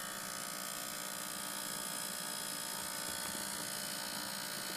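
Brookstone ultrasonic jewelry cleaner running a cleaning cycle in a tank of tap water: a steady electric buzzing hum made of several even tones.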